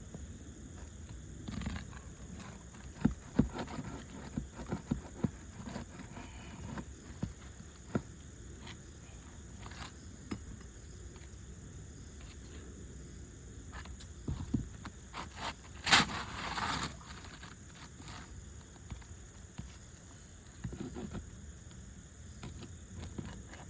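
Scattered clicks, taps and scrapes of a roof snake nail-removal tool working under asphalt shingles to pull nails, with a louder scrape about sixteen seconds in.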